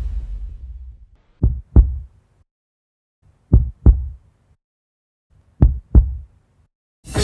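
Heartbeat sound effect: three double thumps, each pair about two seconds after the last, following a fading whoosh in the first second. Band music cuts in just before the end.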